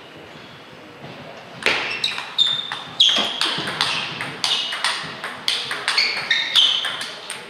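Table tennis rally. About a second and a half in comes the serve, then the ball clicks off the rackets and bounces on the table two or three times a second, each hit with a short high ping, until the rally stops near the end.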